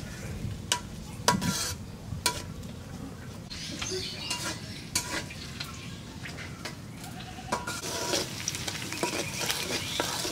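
Food sizzling and frying in a pan while a metal utensil stirs it, knocking and scraping against the pan every second or so.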